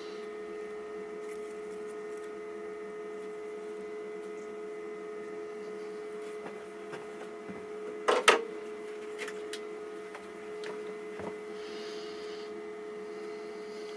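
A steady electrical hum holding one pitch, with a brief loud clatter about eight seconds in and a few faint knocks from handling.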